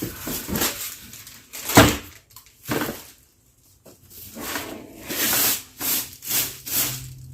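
Packaging and plastic being handled while an air purifier is unboxed: a series of irregular rustling, crinkling handling noises, loudest about two seconds in and in a quick run of several near the end.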